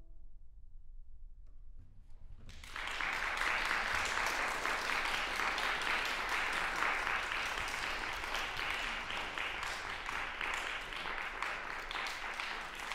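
The last piano notes die away. About two and a half seconds in, audience applause breaks out and keeps going steadily.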